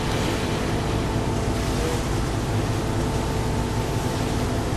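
Engine of the small ferry Dai-hachi Oshima running steadily under way, a low drone with a steady hum, over the rush of sea water and wind.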